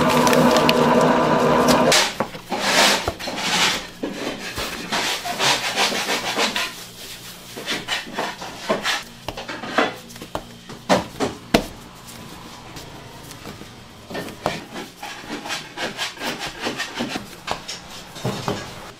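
Hands tearing off pieces of dough and setting them down on a floured wooden board: irregular rubbing and scraping with sharp little knocks on the wood. A steady hum sounds for about the first two seconds, then stops.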